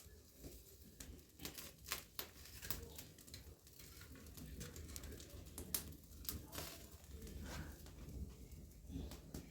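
A whole chicken being singed over an open fire to burn off its stubborn feathers: irregular crackling and sharp snaps over a low rumble of the fire.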